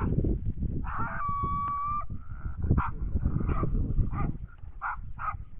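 An electronic predator call plays coyote-like whimpers and short yips, about eight short cries and one steady held whine about a second in, over a low rumble.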